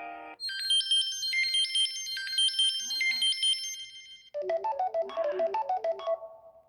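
Stock Samsung Galaxy Tab 3 ringtones playing one after another. A bright, fast, high-pitched synth melody runs to about four seconds in, then a lower-pitched tune starts abruptly and fades out near the end.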